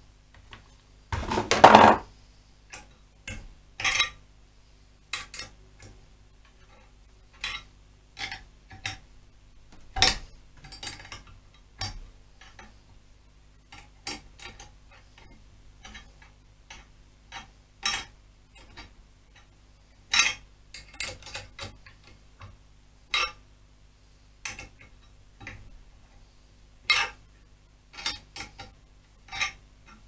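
Irregular light clicks and metallic clinks of metal bracket pieces and hand tools being handled, with a short, rougher burst of noise about a second and a half in as the loudest moment.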